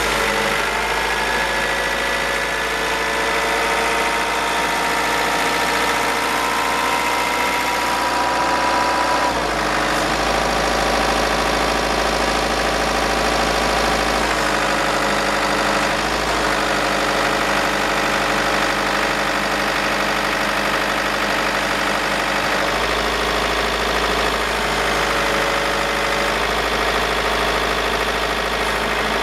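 Truck engine running and driving the hydraulics of a Tadano Super Z250 loader crane while the crane is worked. The steady running note's tones slide and shift several times as the boom moves.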